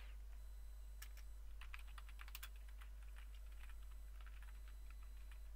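Typing on a computer keyboard: a run of quick keystrokes starting about a second in and a shorter run about four seconds in, over a faint steady low hum.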